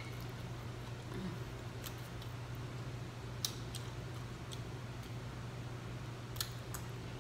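Close-miked eating sounds: a few sharp clicks and smacks of the mouth and fork as a forkful of food is eaten, over a steady low hum.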